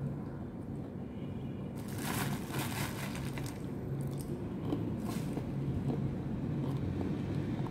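Eating a very ripe banana: the peel being pulled back and chewing, with scraping rustles about two seconds in and again around five seconds, over a steady low hum.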